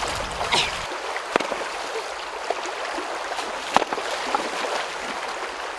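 Stream water running steadily, with a couple of sharp knocks or splashes, one about a second and a half in and another near two-thirds of the way through.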